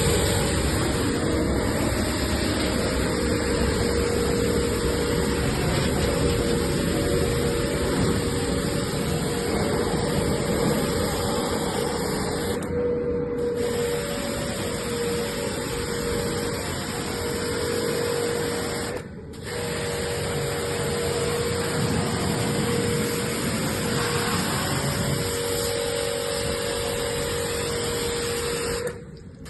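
A machine running steadily with a constant hum, broken by brief dropouts about a third and two thirds of the way through.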